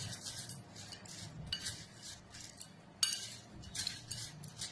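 A spoon stirring a dry, crunchy mix of fried cornflakes, peanuts and cashews in a bowl, in a series of uneven scraping, rustling strokes with clinks against the bowl.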